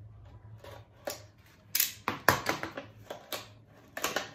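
Fingernails picking and peeling sealing tape off a small cardboard retail box: an irregular run of sharp scratchy clicks and scrapes, the loudest about halfway through.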